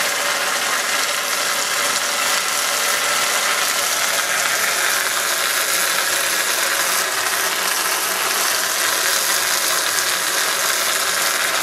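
Flood coolant jetting from a single quarter-inch straight tip on a half-inch Loc-Line hose and splashing steadily against the plastic-sheet enclosure of a CNC mill.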